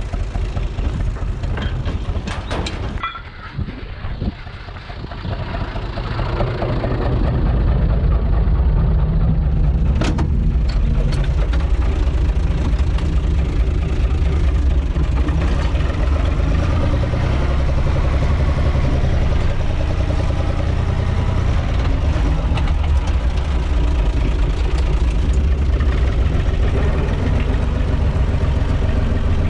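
UTB 445 DT tractor's diesel engine running while the tractor drives, heard from inside the cab. The sound drops off briefly about three seconds in, then the engine picks up and runs steadily and loud.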